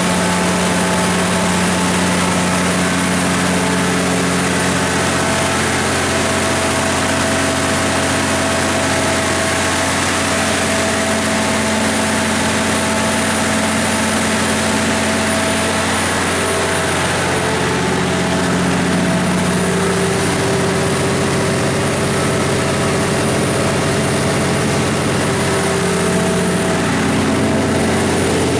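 Cummins NTA855-G3 turbocharged six-cylinder diesel engine of a 350 kW standby generator set running steadily at its governed 1800 rpm, heard close with the enclosure doors open.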